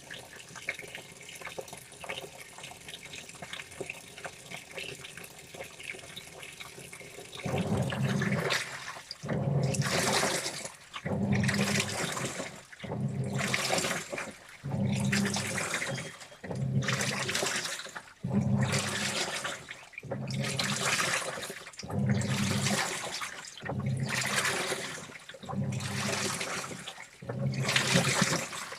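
Washing machine washing a load: a soft water hiss at first, then from about seven seconds in a regular swish of sloshing water and motor hum, repeating about every second and a half as the wash action turns the load.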